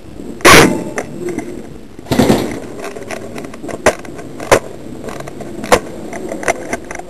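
Airsoft guns firing at close quarters: one loud sharp bang about half a second in, then a softer burst and several separate sharp cracks at irregular intervals.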